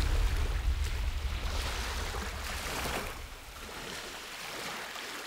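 Small Baltic Sea waves washing and lapping, the wash swelling and ebbing every second or two. A low rumble of wind on the microphone runs under it and dies away about halfway through.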